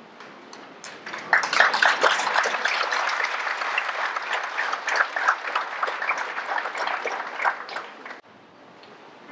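Audience applause in a hall: many hands clapping, swelling in about a second in and holding steady, then cut off suddenly near the end.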